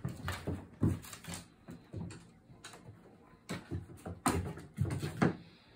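A cat's paws thumping and scrabbling on a hardwood floor as it pounces and leaps at a toy: a run of irregular knocks, the loudest about a second in and again past the four-second mark.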